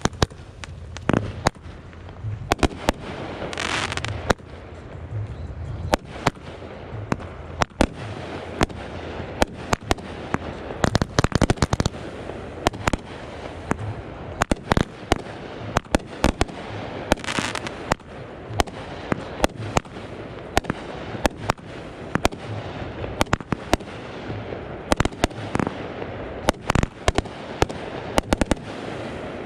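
Consumer fireworks going off in quick succession: many sharp pops, crackles and bangs of bursting effects. A hissing rush rises twice, about four seconds in and again around seventeen seconds in.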